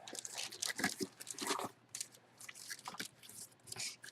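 Crinkling and rustling of packaging being handled, in irregular crackly bursts.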